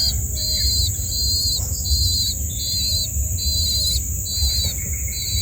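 A cricket chirping in a steady rhythm, about two short trilled chirps a second, over a constant high-pitched insect drone and a low rumble.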